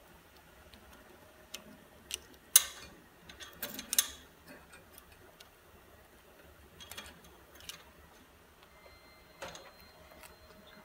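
Scattered clicks and small metallic knocks as parts are handled in an exercise bike's metal frame tube, the sharpest about two and a half and four seconds in.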